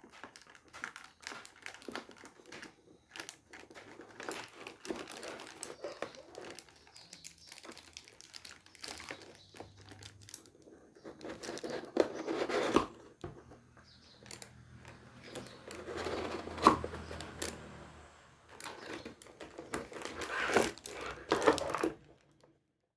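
Packaging crinkling and rustling as it is handled, with scattered clicks and knocks, in irregular bursts that stop shortly before the end.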